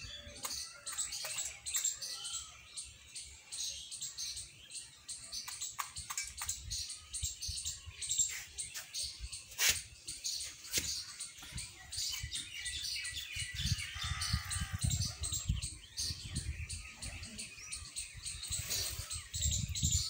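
Small birds chirping and tweeting on and off throughout, with scattered sharp clicks, the sharpest about ten seconds in.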